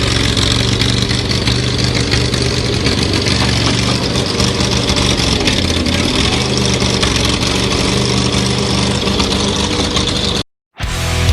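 Engine of a home-built airsoft tank running steadily, then cutting off suddenly near the end.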